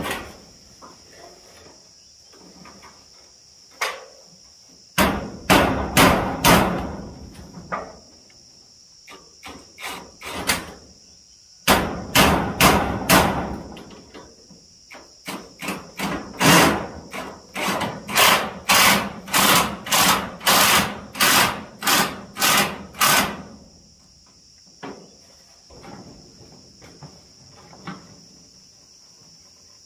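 Cordless impact driver driving screws through corrugated metal roofing sheet into timber, rattling in three spells, the last a long run of short bursts about two a second. A steady high insect drone of crickets runs underneath.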